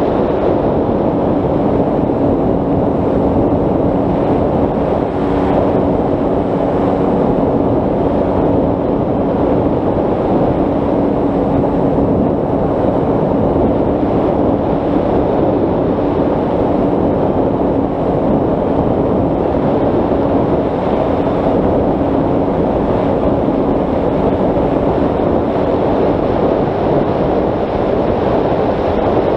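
Wind rushing loudly over the onboard camera of a Bixler 3 RC plane in flight, with the electric motor and propeller humming at one steady pitch underneath. The hum fades near the end.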